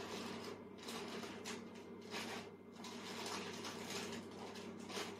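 Quiet room tone: a steady low hum with faint, irregular rustling and small clicks.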